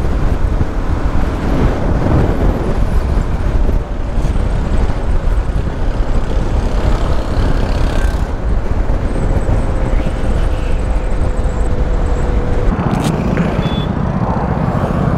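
KTM 390 motorcycle at highway speed: wind rush over the helmet microphone mixed with the engine's running note. Near the end the wind rush eases and the lower engine sound comes forward.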